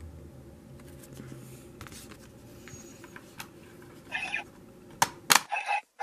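Plastic toy Dragvisor gauntlet handled and loaded with an advent card: faint handling noise, a short rustle about four seconds in, then two sharp plastic clicks as the card goes in and the visor is snapped shut, after which the sound cuts off suddenly.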